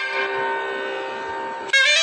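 Shehnai holding a long, quieter sustained note, then breaking back into a loud ornamented melodic phrase near the end.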